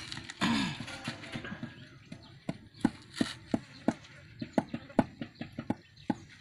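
Steady run of sharp taps on concrete blocks, about three a second and clearer from about two seconds in, as a mason knocks blocks down into their mortar bed while laying a course.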